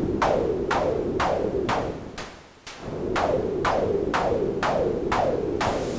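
Envelope-triggered bursts of white/pink noise through a TDA1524-based voltage-controlled tone filter with resonance added. The hits repeat about twice a second, each dropping in pitch to a short ring. The hits fade out briefly around the middle and come back. Near the end they give way to a steady hiss.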